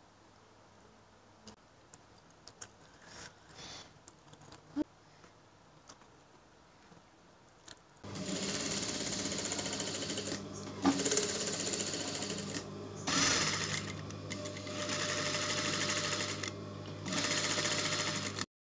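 Singer sewing machine running as it stitches fabric, starting about halfway through and stopping briefly a few times before running on again. Before it starts there are only faint scattered clicks and rustles.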